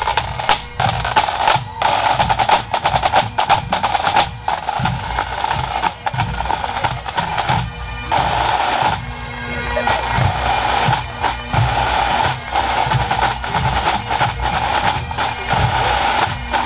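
Pipe band snare drums playing rapid strokes and rolls close by, over massed bagpipes with their steady drones.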